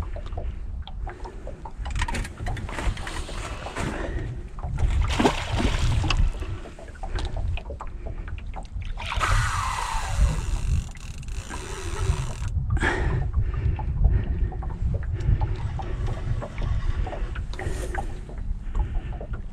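Wind buffeting the microphone in a steady low rumble, with small waves lapping and knocking against a boat's hull. About nine seconds in comes a brief, louder rush of noise lasting a couple of seconds.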